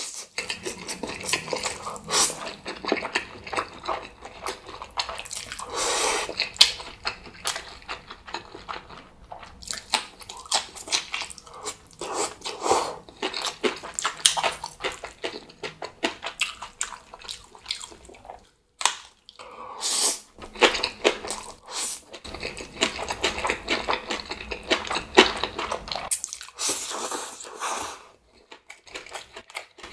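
A person eating Chapagetti black bean instant noodles: continual wet smacking and chewing, broken by several longer slurps of the saucy noodles.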